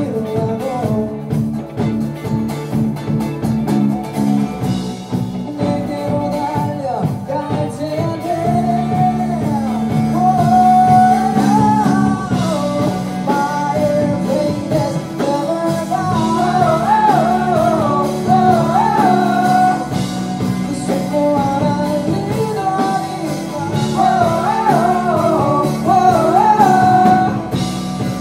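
Live rock band playing a song: electric bass and guitar holding chords under a voice singing the melody.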